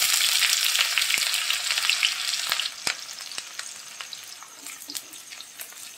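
Finely chopped onion sizzling in hot mustard oil with mustard seeds and cumin in a kadhai, with scattered sharp crackles. The sizzle is loud just after the onion goes in and settles to a quieter, steady frying about halfway through.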